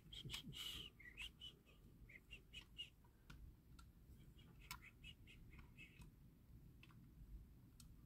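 Near silence: faint small clicks and short high squeaks as a rivet on a die-cast toy's baseplate is worked by hand.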